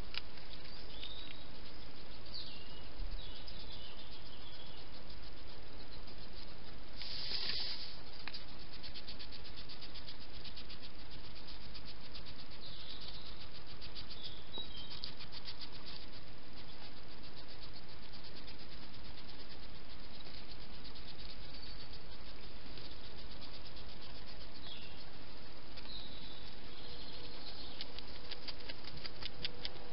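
Steady hiss of a night-time garden picked up by a trail camera's microphone, with faint high chirps scattered through and a brief high rasp about seven seconds in. Runs of fine rapid ticks come about a third of the way in and again near the end.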